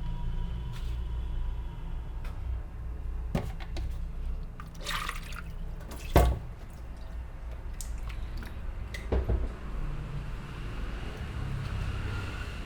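Hands massaging a person's head and face, with a few sharp clicks or slaps; the loudest comes about six seconds in. A steady low hum runs underneath.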